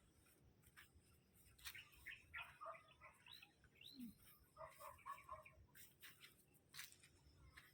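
Faint chicken clucking: short calls in two bunches, about two seconds in and about five seconds in.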